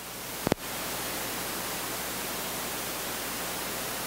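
A single sharp click about half a second in, then a steady hiss with a faint low hum: the recording's background noise during a pause in speech.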